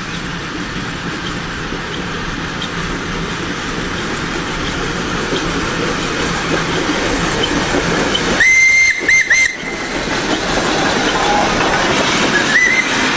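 Steam locomotive approaching with a steady rushing noise that grows louder. About eight seconds in its high steam whistle sounds, a blast broken into a few short toots, and a short toot follows near the end.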